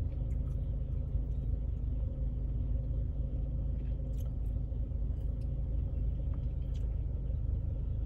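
Idling car engine heard from inside the cabin: a steady low rumble with a faint hum over it, and a few faint high ticks now and then.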